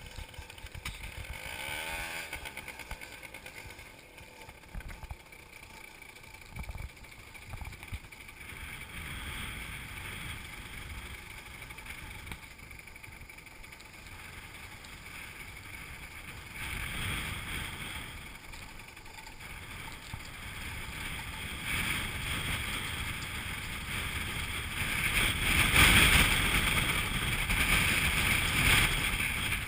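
Motorbike riding along a rough rural road and gravel track: engine running under heavy wind noise on the microphone, growing louder toward the end.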